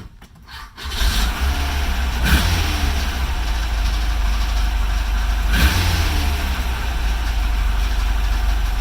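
A machine starts about a second in and runs steadily with a deep, low sound, hard starting being the trouble at issue. Two brief louder surges come about a second and a half and five seconds in.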